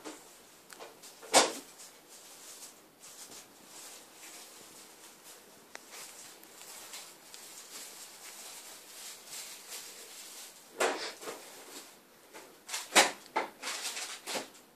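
A cat playing with an apple on a tiled floor: a few short, sharp knocks and scuffs as the apple is bitten and batted against the tiles. A loud one comes about a second and a half in, another near the end, then a quick cluster of them.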